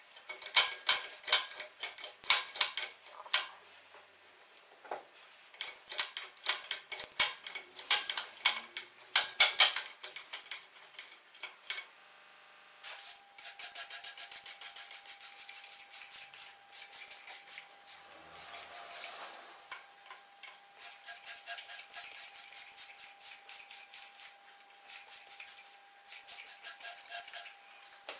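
Runs of sharp metallic clicks and clinks from hands and tools working on the cast-iron head of a Singer 29K33 shoe-patcher sewing machine. About halfway through the clicking settles into a steadier rhythm over a faint steady tone.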